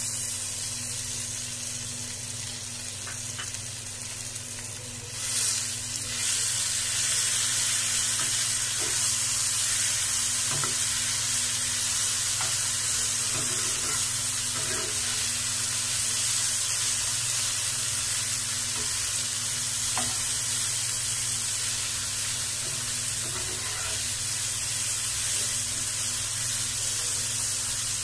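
Poha and moong dal mixture sizzling in hot oil in a nonstick frying pan as it is stirred and broken up with a spatula, with light taps of the spatula now and then. The sizzle grows louder about five seconds in and then holds steady.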